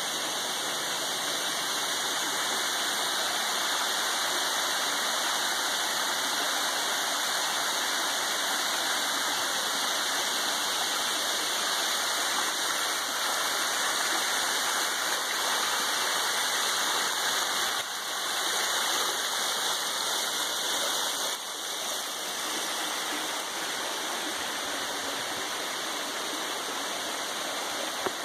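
Steady rush of a waterfall and creek water spilling over shale ledges.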